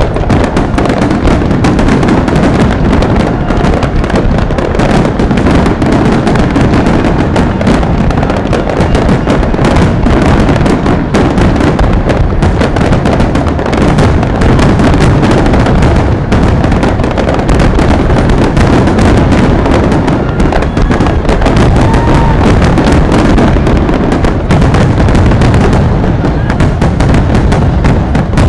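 Fireworks display: a loud, dense, unbroken barrage of bangs.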